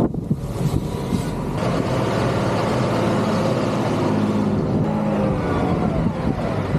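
Large farm tractor diesel engines running steadily, with a broad hiss that joins about a second and a half in.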